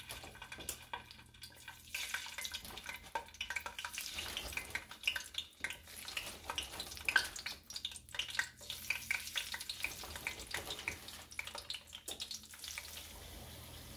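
Steak-cut fries sizzling and crackling in canola oil at frying heat (about 350°F) in a cast iron frying pan as they are slid in one at a time. The irregular pops thin out near the end into a steadier hiss.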